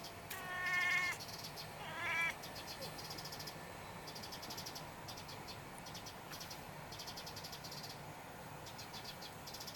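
Black kitten chattering at a sparrow, the 'kakaka, kekeke' prey-excitement call: a stuttering call lasting about a second, then a shorter one about two seconds in. Behind it, a high rapid ticking comes and goes.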